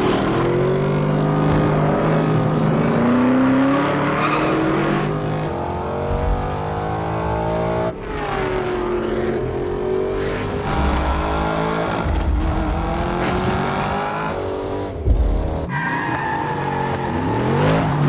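Muscle-car engines revving hard, their pitch rising and falling as they accelerate and change gear, with tyre squeal as the cars slide through turns. The sound changes abruptly several times.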